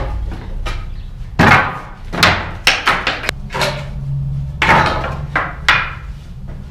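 Wooden pallet pieces being knocked loose: a series of sharp, irregular wooden knocks and clatters, about seven in all.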